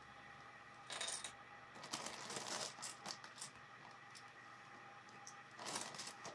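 BlueBrixx plastic clip bricks clicking and clattering as pieces are handled and pressed together, in a few short bursts of sharp clicks.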